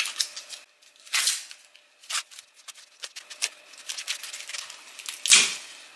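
Fresh corn husks being ripped off an ear of corn by hand: a run of crisp tearing and snapping sounds, the loudest near the end.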